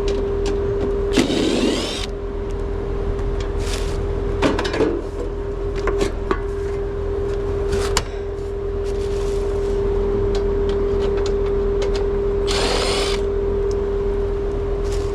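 Trane two-stage air conditioner running steadily with a constant hum. Several brief scraping or rubbing noises come about a second in, around four to five seconds in and near twelve seconds.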